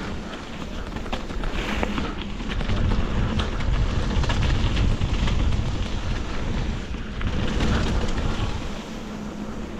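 Wind buffeting an action camera's microphone as a mountain bike rolls fast over a dirt trail, with scattered rattles and knocks from the bike and tyres.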